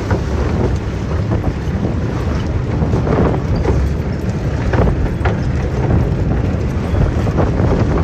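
Loud wind buffeting the phone's microphone from riding in an open vehicle, a steady low rumble with a few light knocks and rattles.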